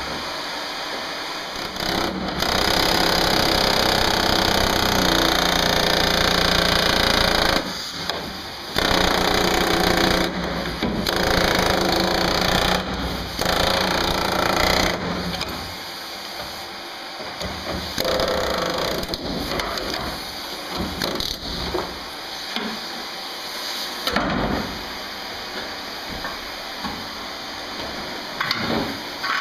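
Pneumatic air chisel hammering through a van's sheet-steel floor in several long bursts with short pauses between them. The second half is quieter, with more broken, irregular clattering.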